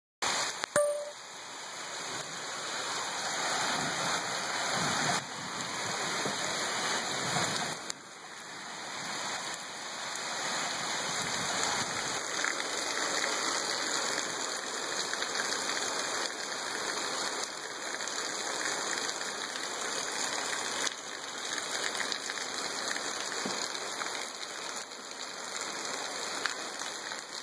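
Heavy cloudburst rain pouring down in a thunderstorm, a steady dense hiss of drops hitting the ground and roofs.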